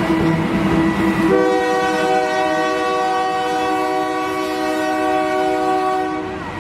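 Train running past with its horn sounding one long, steady chord, starting about a second in and lasting about five seconds, dropping in pitch as it cuts off.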